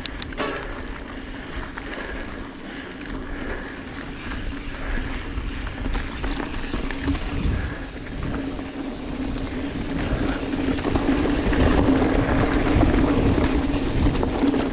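Mountain bike rolling along dirt singletrack: knobby tyres on packed dirt and the bike rattling, with a steady hum and wind on the microphone. It grows louder for the last few seconds as the bike runs down a rocky, rutted section.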